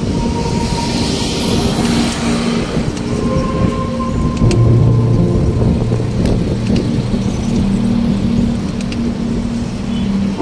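Wind buffeting the microphone and rumble from a bicycle riding along a pavement, with steady low humming tones underneath that shift in pitch about halfway through.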